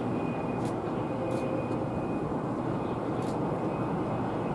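Boeing 787-8 airliner's jet engines heard from a distance as a steady rumble with a faint high whine, as the plane rolls along the runway.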